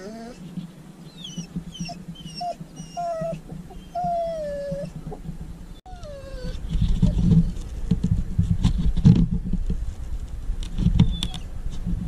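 Pit bull whining in short, high, rising-and-falling whimpers for about the first six seconds. After that come louder rubbing and knocking sounds as a knife cuts and scrapes the foam deck of a soft-top surfboard close to the camera.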